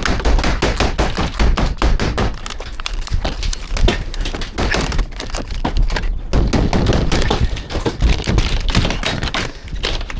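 Brittle old conservatory roof sheeting being broken up: a rapid, irregular run of cracking, snapping and knocking, several strikes a second.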